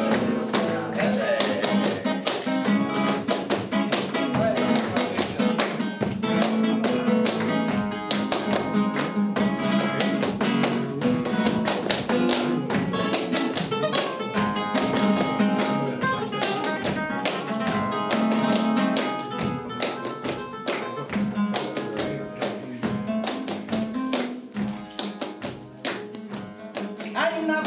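Flamenco guitar playing a tangos falseta, with palmas (sharp rhythmic handclaps) marking the compás. The playing softens over the last few seconds.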